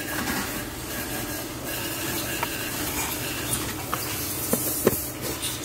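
Toyota HiAce's 2.5-litre diesel engine idling steadily, heard inside the cab. Several sharp plastic clicks in the second half as the fuse box cover is handled, the loudest near the end.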